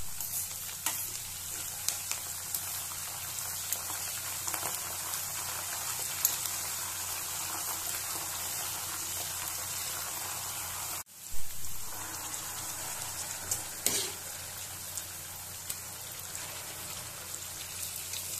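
Garlic, dried red chillies and curry leaves frying in hot oil in a steel pan: a steady sizzle with small crackles and pops, stirred now and then with a spoon. Just past the middle the sound briefly cuts out, then comes back with a sudden louder sizzle.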